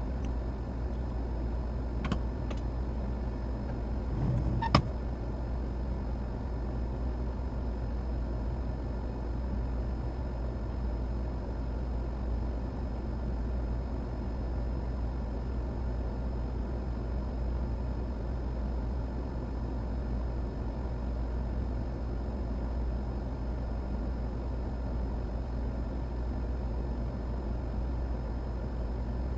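Steady low hum of running bench equipment. There is a light click about two seconds in and a sharper click about five seconds in.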